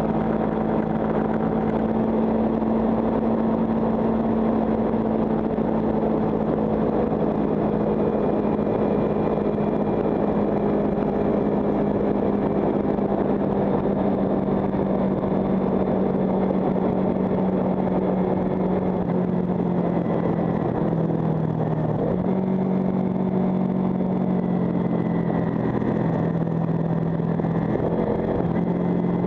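Kawasaki Ninja 300 parallel-twin engine running at a steady cruise, heard from an onboard camera over a steady wind rush. The engine note shifts in pitch a couple of times in the second half.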